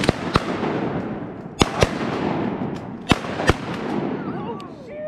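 Shotgun blasts from several duck hunters firing at once, about six shots in quick pairs over the first three and a half seconds, each ringing out with a long echo. Near the end a dog whines.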